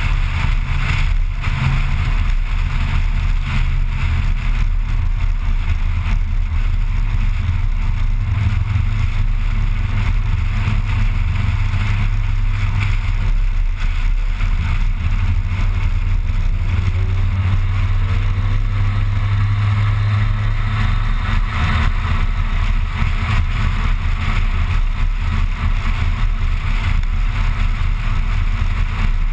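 Mitsubishi Lancer Evolution IX's turbocharged four-cylinder engine and exhaust droning steadily while cruising, heard from inside the cabin along with tyre and road noise.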